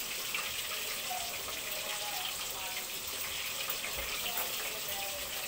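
Catfish frying in hot oil in a covered pan: a steady sizzle with fine crackles of spattering oil.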